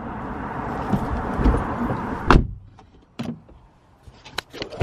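A car door shuts with a solid thump about two seconds in, cutting off the steady outside noise heard through the open door. A few light clicks follow inside the quiet cabin.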